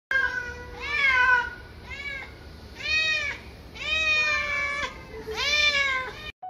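Domestic cat meowing about five times, each meow rising and falling in pitch, the longer ones lasting close to a second, with short gaps between them.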